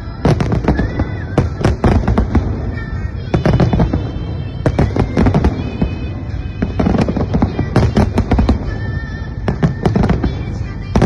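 Fireworks salute going off: volleys of sharp bangs and crackling bursts every second or two over a continuous low rumble.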